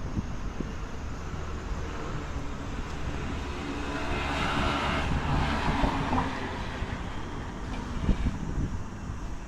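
A Keisei electric train passing along the line, its rush of wheels and motors swelling to a peak about halfway through and then fading, over a low rumble of wind on the microphone.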